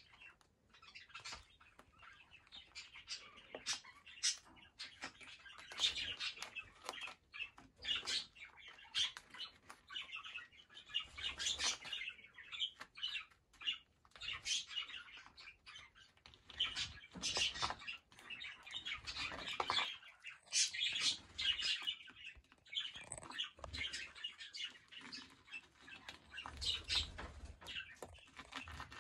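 Young cockatiels shuffling and pecking about in sand strewn with shells: irregular soft scratching, rustling and small clicks.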